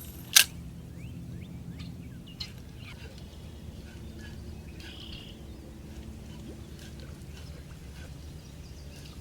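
Faint bird chirps over a low steady hum, with one sharp click about half a second in.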